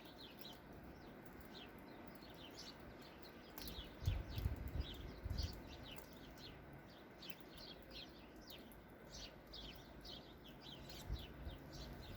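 Small birds chirping over and over, many short, quickly falling high notes. A low rumble on the microphone comes in briefly about four seconds in and again a second later.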